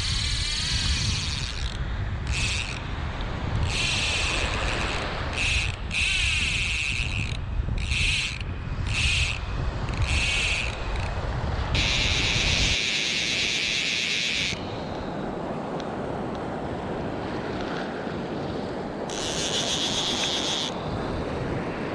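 Fly reel's ratchet buzzing in a string of short bursts, with longer runs of about three seconds near the middle and near the end, as line goes on or off the reel. Wind buffets the microphone through the first half, then small waves wash in the background.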